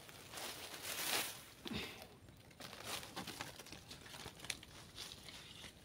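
Dry leaves and brush rustling and crackling underfoot and by hand, with a louder rustle about a second in and lighter crackles after.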